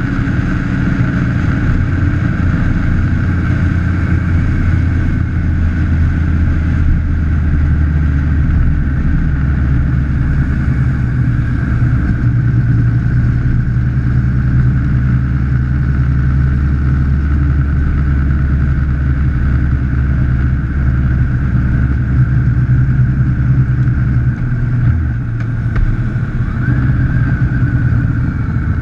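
Vehicle engine running steadily at cruising speed, heard from a camera mounted on the outside of the body, with road and wind noise. The engine note shifts about 25 seconds in, and a short rising whine comes near the end.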